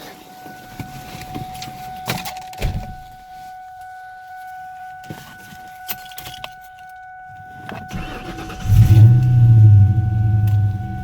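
A few clicks and key rattles under a steady high-pitched tone. Then, about nine seconds in, the 2003 Mustang GT's 4.6-litre two-valve V8 starts, revs up briefly and settles to a fast idle. It is running on a shorter serpentine belt that bypasses the AC compressor.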